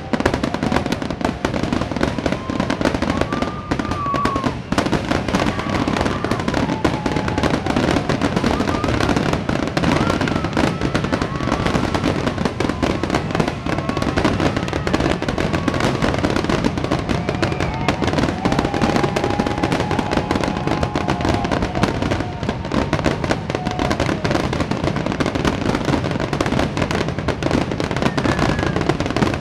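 Aerial fireworks exploding in a dense, unbroken barrage of booms and crackles.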